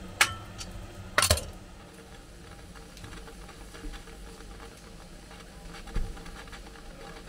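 Metal clinks of a firing shovel striking the firehole of a steam locomotive's firebox as coal is fed in. One sharp strike just after the start and a quick double strike about a second in, over a low steady hiss, with a dull thump near the end.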